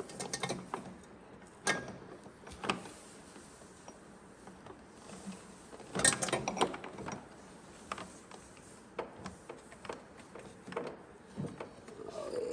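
Scattered metallic clicks and clanks of a drive chain and gears being worked into a Ski-Doo snowmobile's chain case. The loudest cluster of clanks comes about six seconds in.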